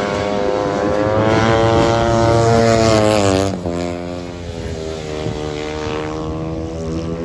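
A 250 speedway bike's engine running hard at high revs, its pitch sagging and the sound dropping away about three and a half seconds in. It then runs on more quietly and steadily.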